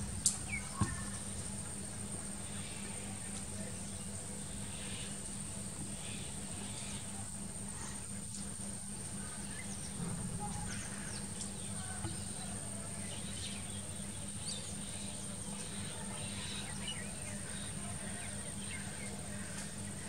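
Outdoor rural ambience: scattered short bird chirps over a steady high insect whine and a low steady hum, with two sharp clicks in the first second.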